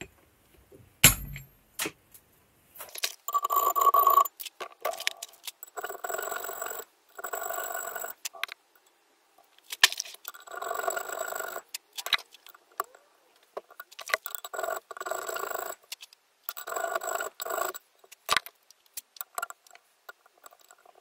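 One hammer blow on a steel plate clamped in a vise, then an electric drill running in repeated short bursts of about a second each, drilling a hole at the edge of a piece pressed into the plate.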